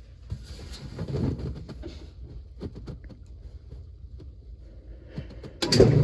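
2007 Whirlpool washing machine's drain pump switching on suddenly near the end with a loud steady hum as the spin drain begins. Before that there is only a faint low hum with scattered light clicks and rustles.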